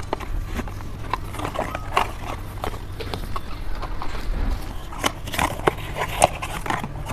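Scattered light clicks, taps and rustles of hands handling hair, a towel and small items, over a steady low hum.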